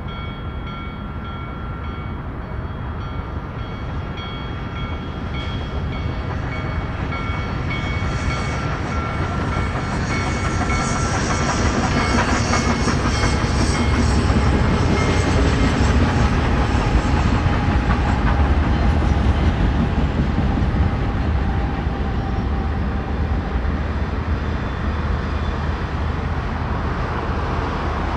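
Union Pacific Big Boy 4014, a 4-8-8-4 articulated steam locomotive, and its train going by with a heavy rumble and rail clatter. The sound builds to its loudest about halfway through and stays there, while a steady high tone heard early on fades out.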